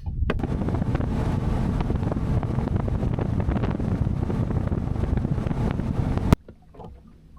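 Heavy wind buffeting the microphone: a loud, steady rush of noise that cuts off abruptly about six seconds in.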